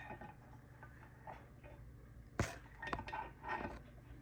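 Light clicks and knocks of objects being handled, with one sharper tap about two and a half seconds in, over a faint low hum.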